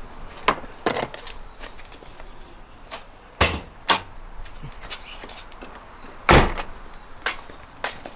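A series of clunks and knocks from a car's door and hood latch being worked, with the loudest thump about six seconds in.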